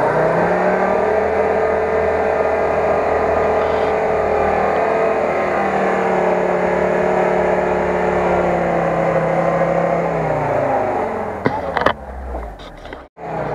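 UAZ-469 engine revved up and held at high revs under load while towing a swamped Lada Niva out of deep water on a rope; the revs drop away near the end, followed by a couple of sharp clicks.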